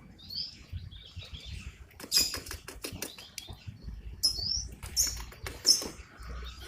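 Birds chirping several times in short high calls, one a quick dipping glide, over light clicking and rustling.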